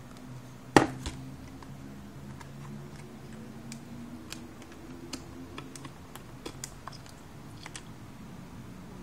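Electronics mounting panel and its circuit boards being handled on a desk: one sharp knock about a second in, then scattered light clicks and taps, over a faint steady low hum.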